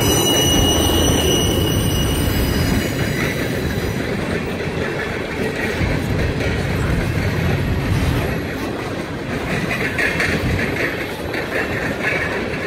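Freight cars of a passing Norfolk Southern train (boxcars and covered hoppers) rolling by close at speed, a steady rumble of steel wheels on the rails. A thin, high wheel squeal sounds over the rumble for the first few seconds, and a rapid rattling clatter rises near the end.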